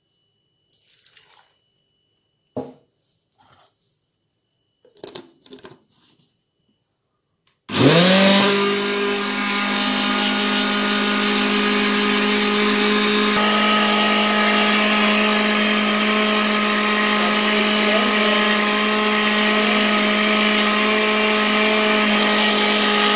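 Countertop blender chopping chunks of ginger, garlic, lime and cucumber in a little water: after a few faint knocks, the motor starts about a third of the way in, spins up within a second and runs steadily at full speed.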